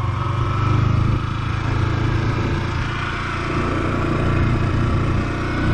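A Yamaha R15 V4's 155 cc single-cylinder engine running as the motorcycle is ridden. Its pitch climbs gently in the first second and again near the end as the revs rise.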